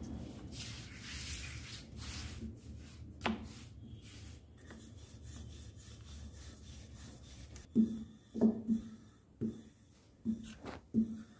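Wooden rolling pin rolling out dough on a silicone mat: a steady rubbing, then from about eight seconds in a run of short knocks, one or two a second, as the pin is worked back and forth.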